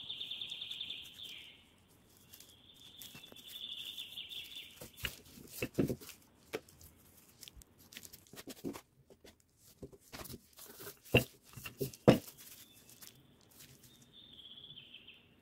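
A small bird chirps in short trilling bursts near the start and again near the end. In between come a run of soft knocks and taps as dough is worked on a silicone mat, with two sharper knocks about a second apart after the middle.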